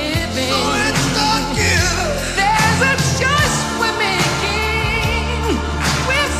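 A pop-rock song with a lead vocal over a steady bass and beat, played on a radio broadcast and heard from a digitized chrome cassette recording.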